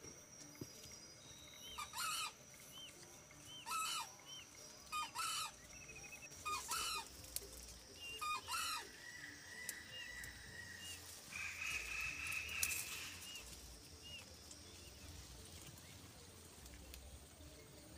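Junglefowl rooster calling: a series of about six short, sharp calls over the first nine seconds or so, with small birds chirping faintly and a steady insect-like buzz around them.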